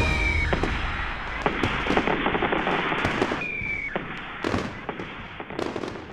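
Fireworks display crackling and popping with many quick bursts, with a short falling whistle twice, the crackle fading away toward the end.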